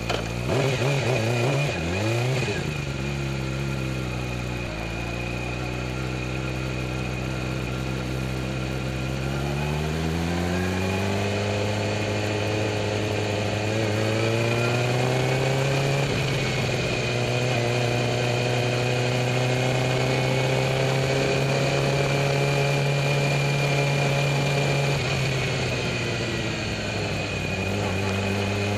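Motorcycle engine blipped a couple of times at low revs, then pulling away about ten seconds in, its pitch rising and holding steady at a moderate speed before easing off near the end.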